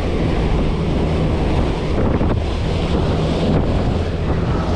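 Twin Yamaha 250 outboard motors running steadily with the boat under way, a low engine hum under the rush of the churning wake and wind buffeting the microphone.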